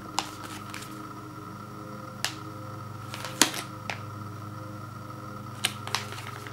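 Plastic microwavable rice pouch crinkling and crackling in the hands as it is torn open, in scattered sharp crackles, the loudest a little past the middle, over a steady low hum.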